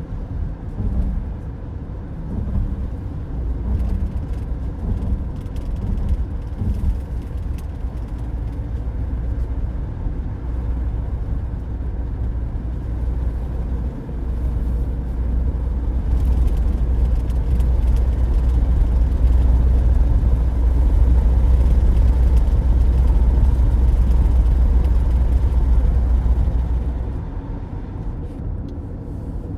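Road noise of a car driving at highway speed, heard from inside the cabin: a steady low rumble of tyres and engine. It grows louder past the middle and eases off again near the end.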